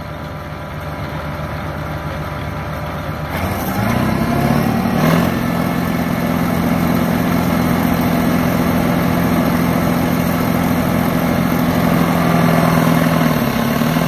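New Holland TR96 combine running. About three and a half seconds in, its threshing rotors are engaged and spin up to a louder, steady pitched hum, a test of whether the rotor plug of tough wet straw has been cleared.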